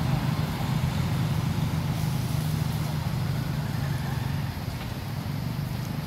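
A steady low motor drone, like an engine running at idle.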